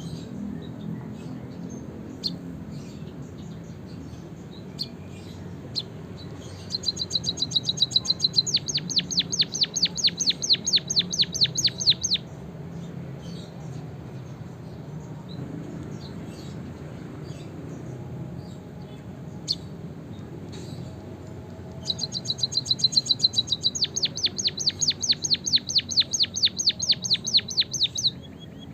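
Caged finch singing: two bursts of a fast, evenly repeated high trill, each lasting about five seconds, with faint scattered chips between them over a low background hum.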